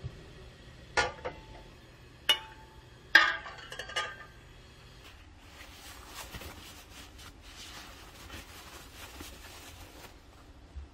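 Glass jars knocking against a cooking pot four times in the first four seconds, each clink ringing briefly. Then a faint, soft rustling of a paper towel wiping a nectarine dry.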